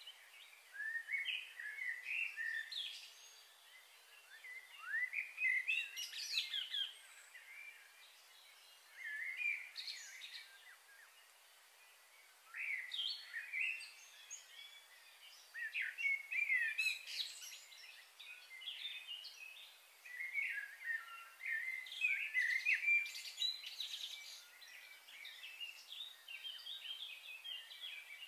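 Small birds chirping and twittering in bursts every few seconds, over a faint steady background hiss.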